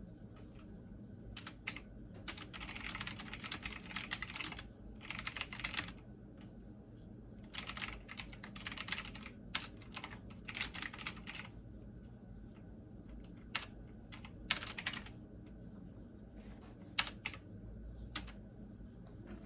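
Computer keyboard typing in bursts of rapid keystrokes with pauses between, ending in a few single key taps, over a steady low hum.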